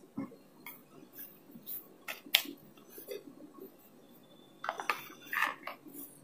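Plates being handled on a kitchen counter: scattered light knocks and clinks, a sharp click a little over two seconds in, and a short cluster of clatter about five seconds in.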